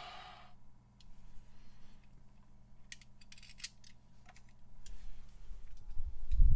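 Light clicks and clatter of die-cast toy cars being lifted off a plastic toy track. Near the end come low rumbling thumps of the camera being handled and moved.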